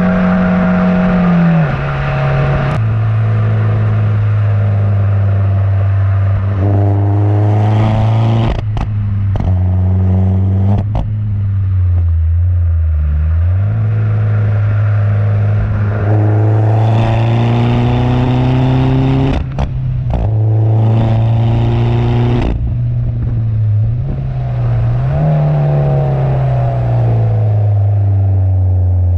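Peugeot 208 GTi's turbocharged four-cylinder and exhaust under hard acceleration: the engine note rises three times through the revs and drops back in between. After the first two pulls, a quick run of sharp pops and bangs comes from the exhaust as the revs fall.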